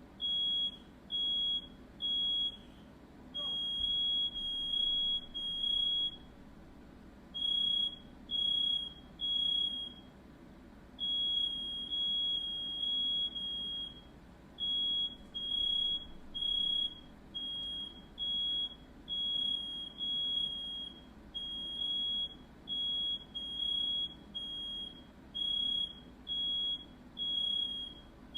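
Smoke alarm sounding: a single high-pitched beep about half a second long, repeating roughly once a second, over a faint low hum.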